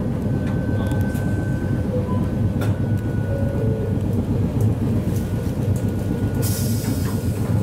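Hakodate city tram in motion, heard from inside the car: a steady low rumble of wheels on rail, with a few sharp clicks and a faint steady high whine. Near the end comes a short burst of hiss.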